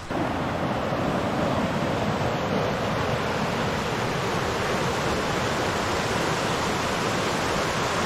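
Mountain stream rushing over rocks in shallow rapids: a steady, even rush of water.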